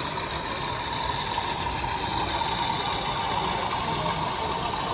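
Model diesel locomotive running past at speed, hauling a train of loaded ballast wagons: a steady engine-like drone with a faint steady whine.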